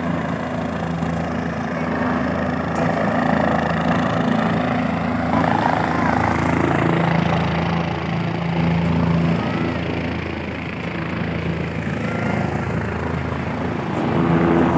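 Helicopter running in the air with a steady low drone, over the chatter of a crowd.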